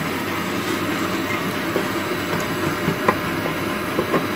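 Whole spices frying in hot oil in a metal pot, a steady sizzle, while a wooden spatula stirs them and taps against the pot a few times, mostly near the end.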